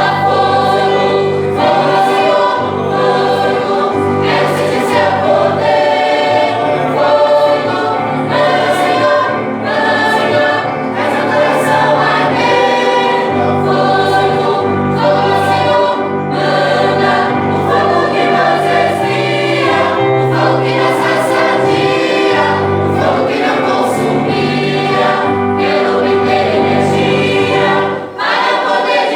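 Choir singing a Christian gospel hymn over sustained low notes, with a brief drop in loudness near the end.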